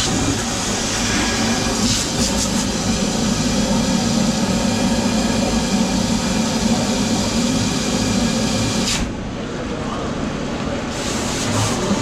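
A motor running steadily with a loud rushing hiss and a low hum. The hiss drops away about nine seconds in, then returns near the end.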